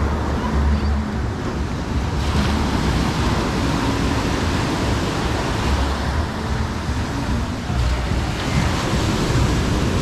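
Ocean surf washing onto the beach, its hiss swelling about two seconds in and again near the end, with wind rumbling on the microphone.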